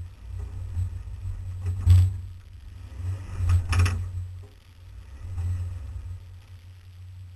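Off-road vehicle crawling over rock ledges: a steady low rumble from the running vehicle, with clunks and knocks from the body and suspension, the loudest about two seconds in and a group of them around three and a half to four seconds.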